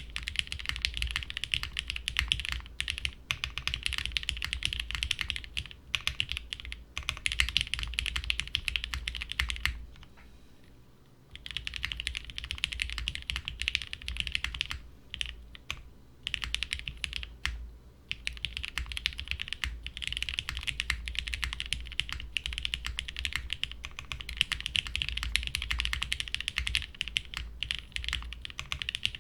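Fast, continuous typing on a Vertex Studio Arc60 WKL mechanical keyboard, built plateless and gasket-mounted with unlubed Cherry MX Black linear switches and GMK keycaps. Keystrokes click in dense runs, with one short pause about ten seconds in.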